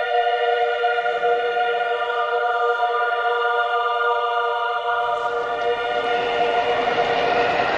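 A choir holding one sustained chord on the film's soundtrack. About five seconds in, a rushing noise swells up beneath it.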